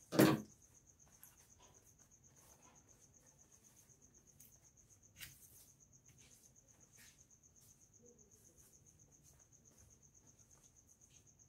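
A cricket trilling steadily in a high, finely pulsed note. There is a short loud knock just after the start, and faint rustles and clicks of fabric being handled.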